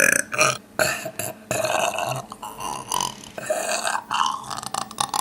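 A person forcing out a rapid run of deliberate burps from deep in the throat, each a short rattling burst, about eight in a row with brief breaks between them.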